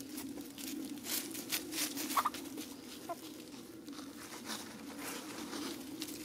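Chickens scratching and pecking through dry leaf litter: an irregular patter of rustles and crunches, with a couple of short, soft chicken notes about two and three seconds in, over a steady low hum.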